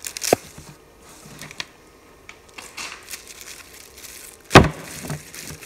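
Clear plastic shrink-wrap film crinkling and rustling as hands fold it around a stack of printed cards. A sharp click comes just after the start, and a loud thump about four and a half seconds in.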